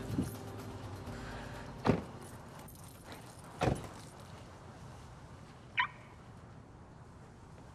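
Car doors of a Subaru Impreza sedan shutting: two thumps about two seconds apart. A short high chirp comes near the end.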